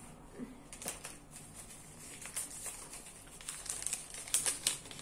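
A paper shop receipt rustling and crinkling as it is unfolded and handled, in irregular short crackles that come more often in the second half.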